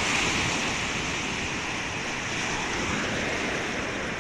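Small waves breaking and washing up on the Lake Michigan shore: a steady rushing surf, a little louder in the first second.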